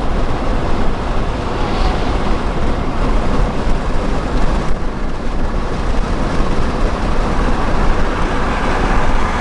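Loud, steady road and engine noise heard inside a moving car at speed.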